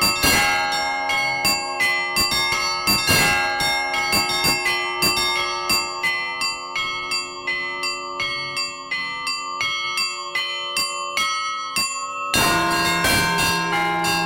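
Russian Orthodox festive bell ringing (prazdnichny zvon), played by one bell ringer: small high bells struck in quick, dense patterns over ringing middle bells, with a few heavier strokes. Near the end the peal grows louder and a deeper bell joins in.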